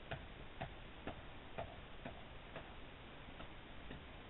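Faint footsteps on a thin layer of fresh snow, about two steps a second, over a low steady hiss.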